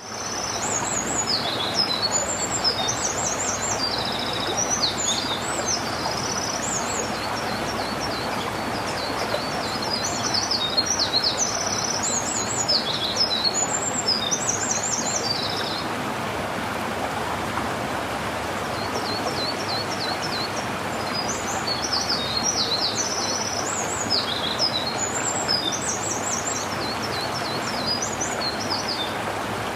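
A small songbird sings long runs of quick, high chirps and trills over the steady rush of a running stream. The song breaks off for a few seconds just past the middle, then starts again.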